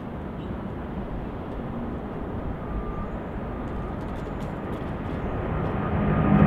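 Airbus A380 jet engines at takeoff thrust: a steady, noisy jet rumble as the four-engine airliner lifts off, growing louder toward the end.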